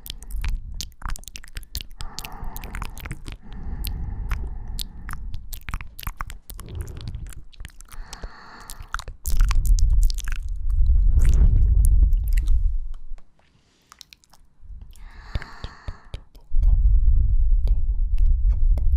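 Close-miked ASMR mouth sounds: light kisses and wet mouth clicks, with soft breaths. Twice there is a long, loud low rumble of breath blowing onto the microphone.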